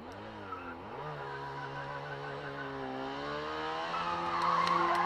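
Rally car engine on a stage, revving hard and getting steadily louder as it approaches. The revs dip and climb again about a second in, as if on a gear change.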